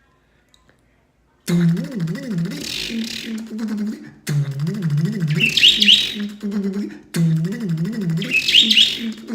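A man imitating a car engine cranking over with his voice, a low wobbling drone, three times in a row, each starting abruptly after a short break. A pet bird chirps along with high quick chirps during each one. The first second and a half is near silence.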